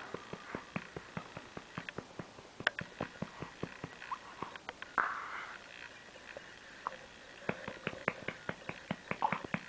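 Light, repeated patting on a baby's back to bring up a burp: short soft pats, several a second and unevenly spaced. A brief breathy rush comes about halfway through.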